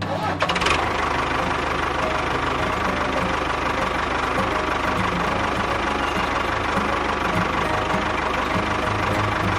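A small engine running steadily at idle with a rapid, even knock. It starts abruptly.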